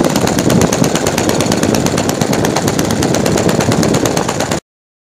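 YS 110 FZ supercharged four-stroke model-aircraft glow engine idling steadily with rapid, even firing, on an idle test after a tune-up and resealing. The sound cuts off suddenly near the end.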